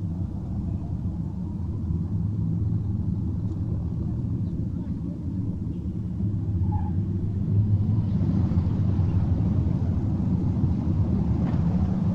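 Steady low mechanical rumble with a deep hum, like a vehicle or engine heard from aboard. It grows a little louder about eight seconds in.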